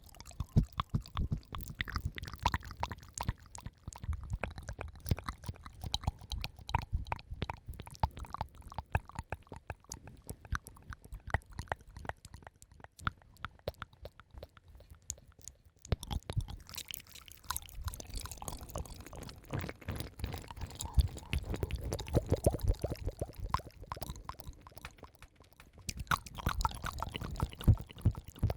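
Close-miked ASMR mouth sounds: a dense run of wet clicks, smacks and squelches with a low rumble. They thin out for a few seconds partway through, then come back.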